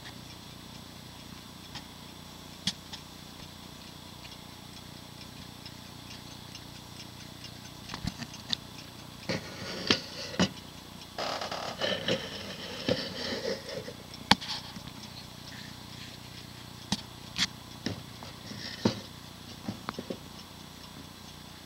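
Seth Thomas wind-up mantel clock ticking faintly. From about eight seconds in, irregular clicks, knocks and a stretch of rustling handling noise.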